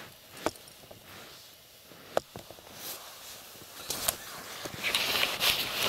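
Quiet close handling noise: a few separate sharp clicks and knocks, then a rustle of padded clothing near the end.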